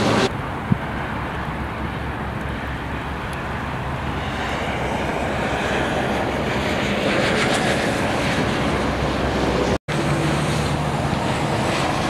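Steady rumble and hiss of gusty wind and rain with traffic on a wet highway, swelling a little midway, with a split-second dropout near the end.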